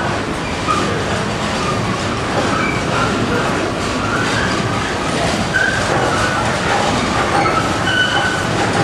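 Loud, steady running of olive oil mill machinery.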